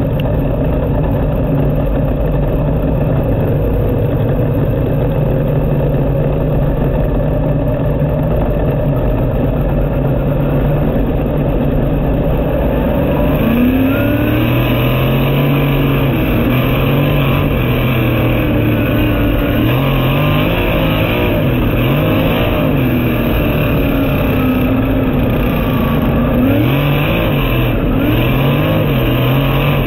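Winged sprint car's V8 engine heard from the cockpit, running at a steady pitch for about the first half. Then it revs up hard, and the pitch rises and falls again and again as the throttle is worked through the corners: the field taking the green at the start of the A main.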